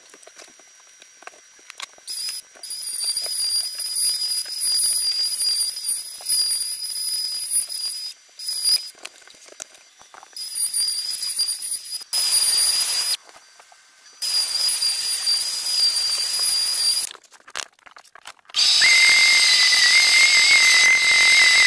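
Milwaukee M18 cordless router fitted with a 3/16-inch round-over bit, whining at a high pitch in several stretches with short stops between them, as it rounds over pine edges. About nineteen seconds in, a Makita random orbit sander starts up with a louder, steady, lower-pitched whine.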